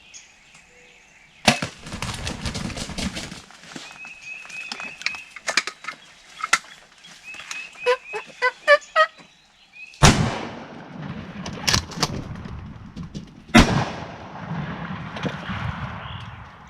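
Two shotgun shots about three and a half seconds apart, the first about ten seconds in, each ringing out, from a follow-up attempt at a second wild turkey. Wild turkeys flush with flapping wings after an earlier sharp crack about a second and a half in, and a quick run of turkey calls comes just before the shots.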